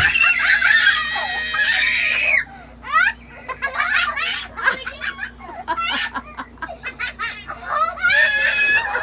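Young children shrieking and laughing in excitement, with long high squeals near the start and again near the end.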